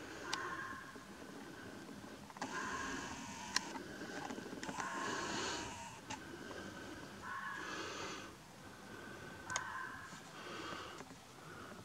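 A fox howling: about six hoarse calls, each half a second to a second long and a second or two apart, the longest about five seconds in, with a few sharp clicks between them.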